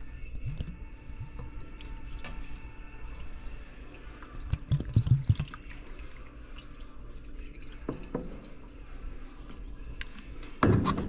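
Condensate water dripping from an air conditioner's drain line, a sign the system is cooling and draining as it should, with a few low knocks about halfway and a louder knock near the end.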